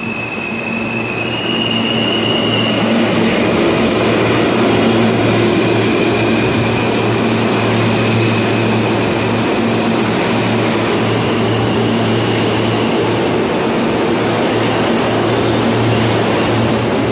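New York City Subway J train cars running along the platform: a steady rumble of wheels on rail over a low, even hum, growing a little louder in the first couple of seconds.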